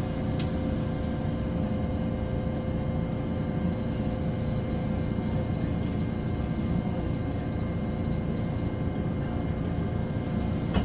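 Hakodate City streetcar running, heard from inside the car: a steady low rumble of wheels on rail and running gear, with a steady humming tone and one sharp click about half a second in.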